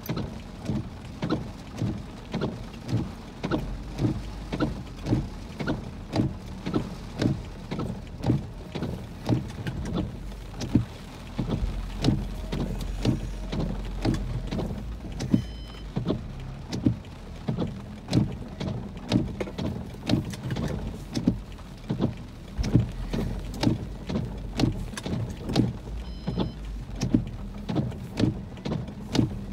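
Windshield wipers sweeping a rain-covered car windshield, knocking about twice a second, over rain on the car and a low steady rumble, heard from inside the car.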